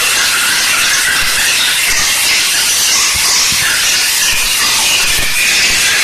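Steam cleaner's lance jetting steam onto an engine cylinder head: a loud, steady hiss.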